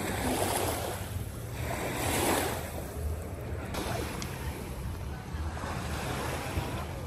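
Sea water washing and splashing in repeated surges about a second apart, with wind rumbling on the microphone.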